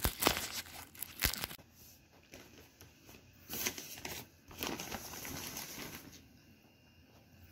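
Crinkly fabric of a collapsible cat tunnel rustling and crinkling in bursts, with two sharp clicks in the first second and a half; the rustling dies down near the end.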